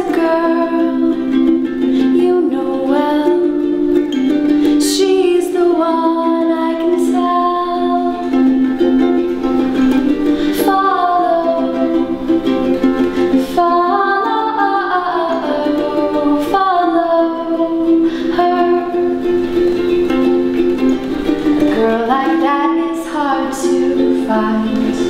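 A woman singing while strumming chords on a ukulele in a bathroom, the small tiled room adding its ring to the sound.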